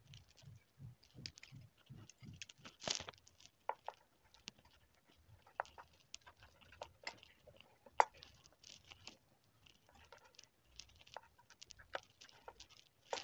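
Thin tin-can sheet metal being bent and pressed into shape by hand: scattered faint clicks and tinny crinkles, with a sharper single click about eight seconds in.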